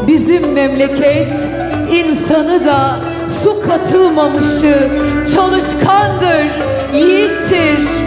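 A woman singing a slow Turkish song solo into a microphone, her voice wavering and bending in pitch, over instrumental accompaniment.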